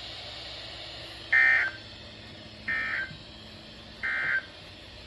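Three short bursts of digital data tones, each under half a second and a little over a second apart, over a steady radio hiss: the EAS/SAME end-of-message code on NOAA Weather Radio, which closes the required weekly test.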